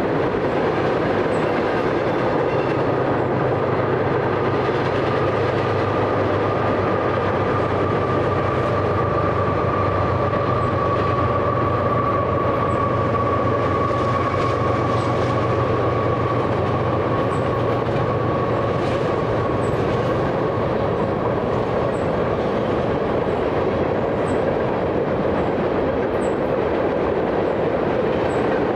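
Freight train of tank cars and boxcars rolling past at a steady pace, its wheels rumbling along the rails with a steady high-pitched tone over a low hum.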